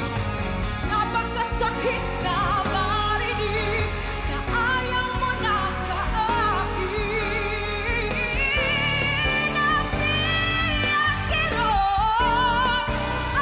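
A woman singing a pop ballad with heavy vibrato and long held notes over a live band with a steady bass line.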